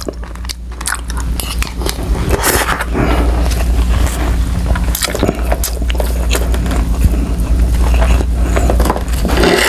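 Close-miked chewing of a mouthful of adobo-braised yellowfin tuna roe: many small, irregular wet clicks and smacks over a low steady hum.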